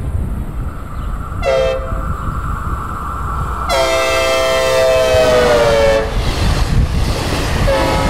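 Synthesized Nathan K5LA five-chime train horn on a passing train: a short toot, then a long blast that drops in pitch as it goes by. Another blast starts near the end. Underneath runs the low rumble and clatter of the moving train.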